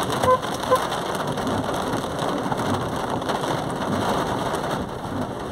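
Heavy rain pelting a car's roof and windshield, heard from inside the car, a dense steady hiss. Two short beeps sound within the first second.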